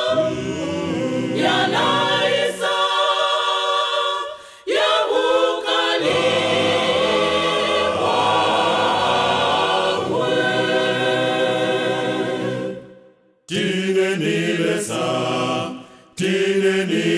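Gospel choir singing a cappella in harmony, holding long chords and breaking off briefly between phrases, with a near-silent gap about thirteen seconds in.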